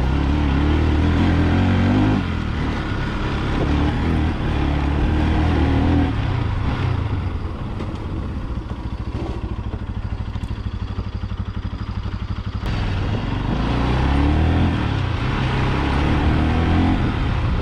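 Motorcycle engine on the move, running at higher revs, then dropping to low revs with a slow, even beat about the middle, then picking up again toward the end.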